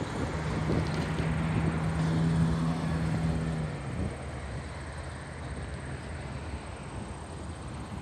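Freight train of tank cars rolling slowly along the track, a steady rumble, with a steady low drone over it that stops about three and a half seconds in.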